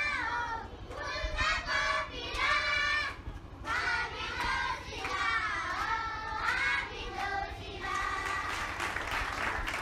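Children's voices singing together, high-pitched sung phrases that glide up and down.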